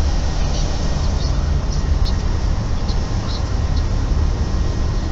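Steady, loud low rumble of outdoor background noise, with a few faint, short high chirps scattered through it.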